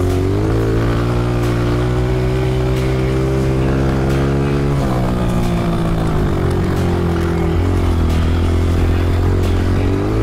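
Honda CRF125F's four-stroke single-cylinder engine running under throttle while riding, its pitch climbing in the first second, holding steady, then dropping sharply about five seconds in before climbing again near the end.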